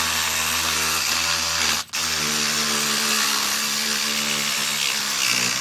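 Corded reciprocating saw cutting through the end of a microwave magnetron held in a vise. It runs steadily, drops out briefly about two seconds in, then runs again.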